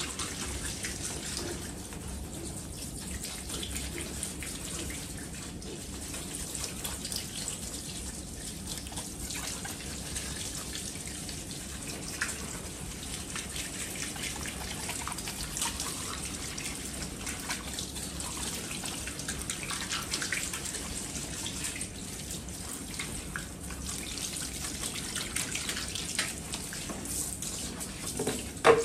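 Water running steadily from a handheld shower sprayer onto a man's hair and splashing into a ceramic salon shampoo basin as the hair is rinsed. A sharp knock right at the end.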